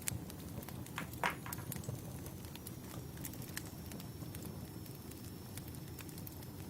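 Wood fire crackling: a steady low rumble with irregular sharp pops and snaps, one louder snap about a second in.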